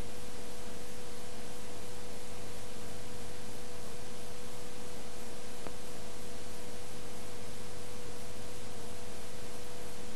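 Steady hiss with a constant hum tone underneath, the recording's own background noise with no other sound; one faint click a little before six seconds in.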